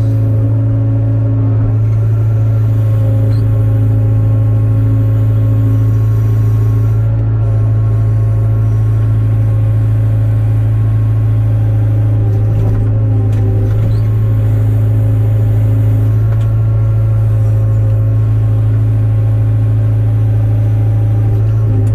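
Hyundai 02-class excavator's diesel engine running at a steady speed.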